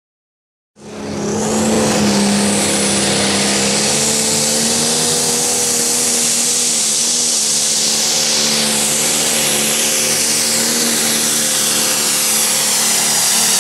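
Pro Stock pulling tractor, a modified John Deere with a turbocharged diesel engine, running flat out under load while dragging a weight-transfer sled. It comes in about a second in and holds loud and steady, with a high whistle over the engine note.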